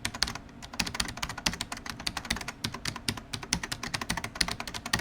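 Rapid, irregular computer-keyboard typing, many keystrokes a second.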